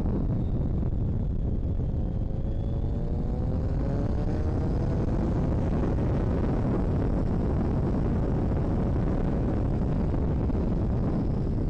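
Motorcycle running on the road, heard through wind rush on the onboard camera's microphone. The engine note climbs once a few seconds in as the bike accelerates.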